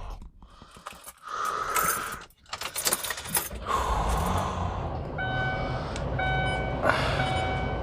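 Street traffic noise, then from about five seconds in a steady electronic beep repeating roughly once a second.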